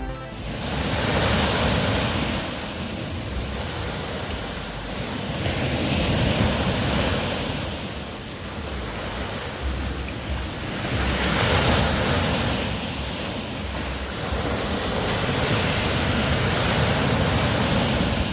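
Ocean surf: waves washing in and drawing back, the noise swelling and fading four times about five seconds apart.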